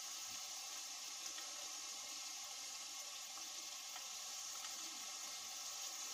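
Onions, tomatoes and ginger-garlic paste sizzling steadily in oil in a stainless steel pot over a low gas flame, with a few faint ticks.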